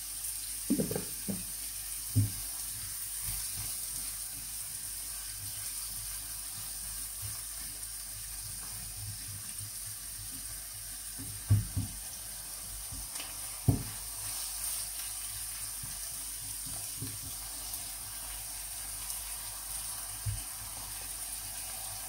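Chopped onion sizzling steadily as it fries in oil in a non-stick frying pan, with a few soft knocks as a silicone spatula stirs it.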